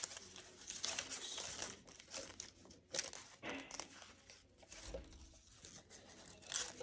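Fringed sheets of paper rustling and crinkling as hands handle and arrange them, in irregular bursts with a few sharper crackles.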